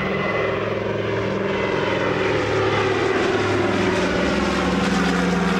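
Douglas C-47 Dakota's twin radial piston engines and propellers running steadily as the aircraft passes low overhead, the engine note shifting slightly about halfway through.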